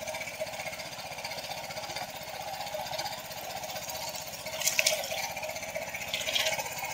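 Small boat motor running steadily at low trolling speed, with a fast, even pulse. A short splash of water comes about two-thirds of the way through as a fish is let go beside the hull.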